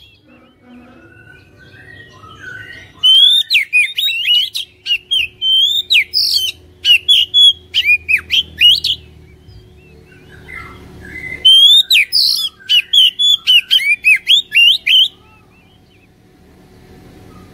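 Oriental magpie-robin singing: two loud runs of quick, varied whistled notes and sharp chips, the first starting about three seconds in, the second about two-thirds through, with soft, quieter notes between them.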